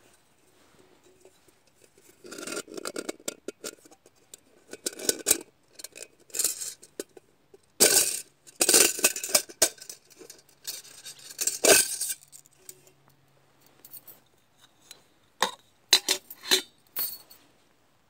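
Metal clinking and scraping as a stainless steel camping pot is handled, its lid taken off and a bow saw blade drawn out of it, in a string of separate clatters that are loudest about eight and twelve seconds in.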